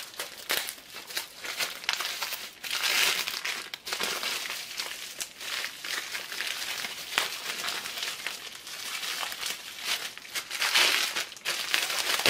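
A plastic bag and bubble wrap crinkling and rustling in irregular bursts as they are pulled open and unwrapped by hand.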